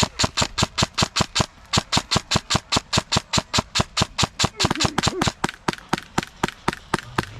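Airsoft gun firing a long string of rapid shots, about six a second, each a sharp crack, with one short break about a second and a half in.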